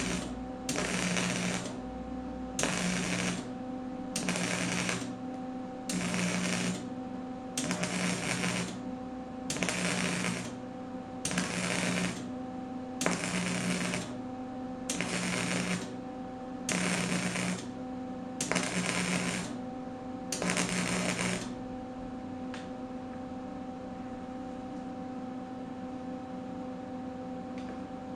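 Wire-feed (MIG) welder laying a string of short stitch welds on sheet steel: about thirteen crackling, sizzling arc bursts, each roughly a second long and coming every second and a half or so. The welding stops about 21 seconds in, leaving only a steady hum.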